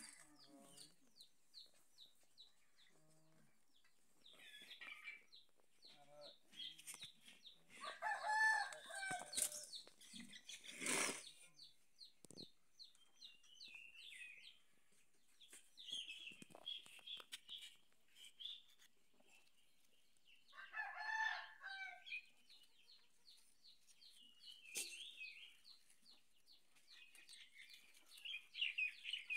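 Chickens calling twice in the background, about eight and twenty-one seconds in, amid small birds chirping again and again. A short sharp noise about eleven seconds in.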